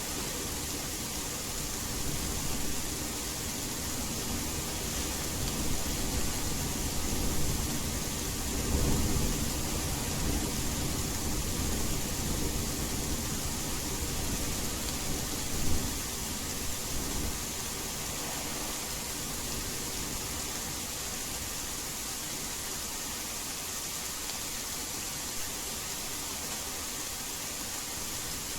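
Steady rain hiss blended with white noise. A low rumble of thunder swells in the first half, peaks sharply a little past halfway, then dies away.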